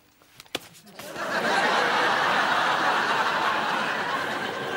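Studio audience laughing: a couple of light knocks, then laughter swells in about a second in and holds strong.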